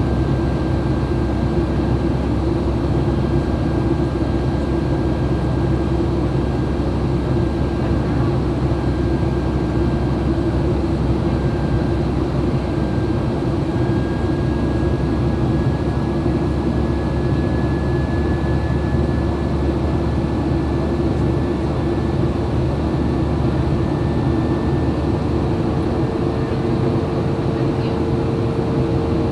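Steady cabin drone of a Boeing 737-800, its CFM56 jet engines and the airflow heard from inside the cabin, with a faint high whine over it. A lower tone comes in near the end.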